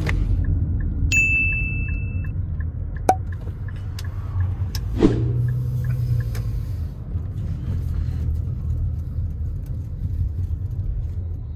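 Car running with a low, steady rumble. About a second in there is a short high tone, followed by a run of quick, even ticks and a couple of sharp knocks.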